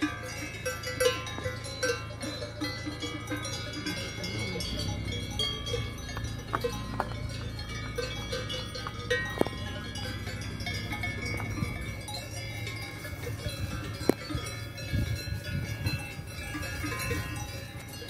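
Bells on a herd of grazing cattle clanking irregularly, many short ringing notes at several different pitches, over a steady low hum.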